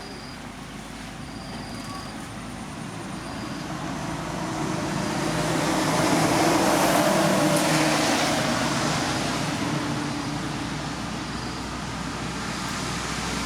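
A motor vehicle passing by, growing louder to a peak about halfway through and then fading.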